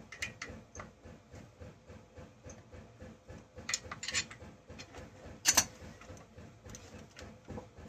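Light clicks and knocks of chainsaw parts and hand tools being handled during disassembly, with a sharper knock about five and a half seconds in.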